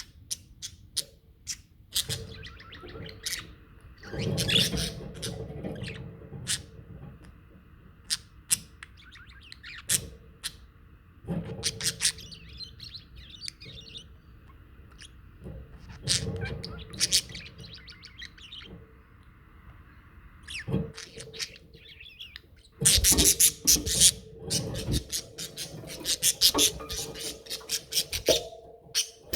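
Budgerigars chirping and chattering: many short, sharp chirps and warbles, getting thick and loud about three-quarters of the way through, over a faint steady hum.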